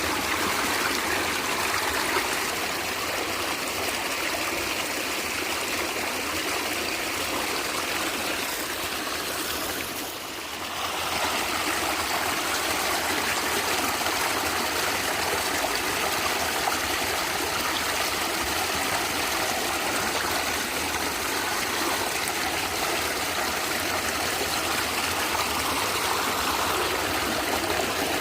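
A natural stream gurgling and running steadily over its bed, briefly dipping in level about ten seconds in.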